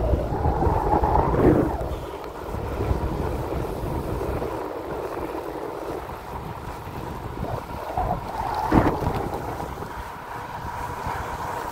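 Wind buffeting the microphone of a moving bicycle: a steady rushing with a low rumble, gustier in the first second or two and again briefly near the end.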